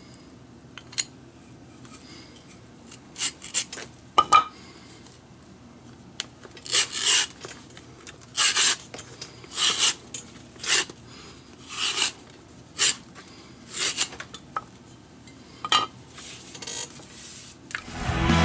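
Leather glove lace being pulled through by hand: about a dozen short rasping strokes of leather rubbing on leather, irregularly spaced, with a few light clicks. Music comes in just at the end.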